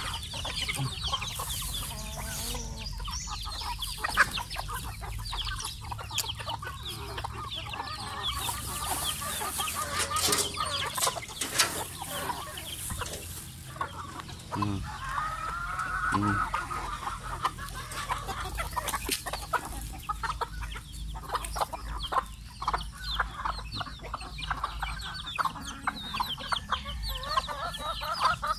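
A flock of chickens clucking continuously, with many short clicks and taps mixed in.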